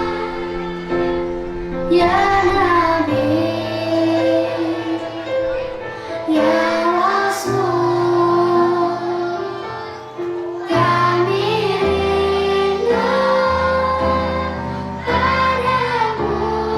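Children's choir singing an Islamic devotional song (sholawat) in a gliding, held melody over instrumental accompaniment with steady chords that change every few seconds.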